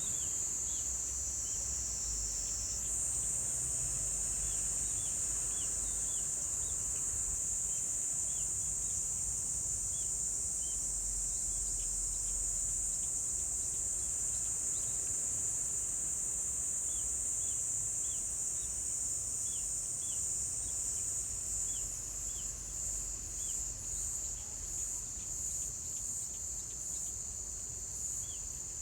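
Insects singing in a steady, high-pitched trill that turns into fast pulsing in the last few seconds. Short, fainter chirps repeat underneath throughout.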